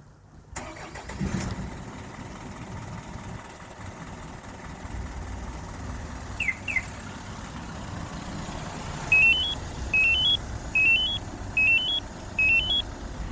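Isuzu Elf truck's diesel engine idling steadily. Near the end, five loud groups of three rising electronic beeps come from the remote-start alarm, with two short falling chirps a few seconds before.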